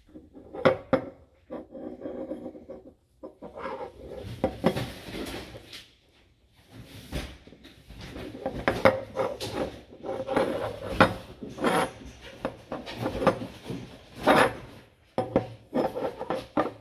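Metal CFM56-3 stage 6 compressor vane sector being handled on a table top: irregular knocks, clinks and scraping as it is turned over and set down, with a short pause about six seconds in.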